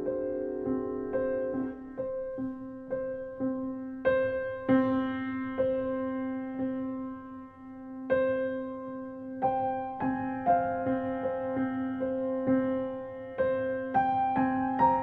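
Background music: slow, soft piano notes struck about every half second over a held low note.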